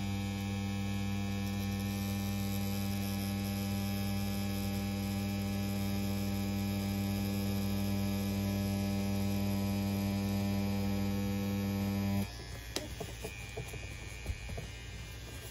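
CNC P6 rotary tattoo pen running at 7.5 volts on a 3.6 mm stroke, a steady low buzz with no change in speed. It cuts off suddenly about twelve seconds in, leaving a few faint clicks.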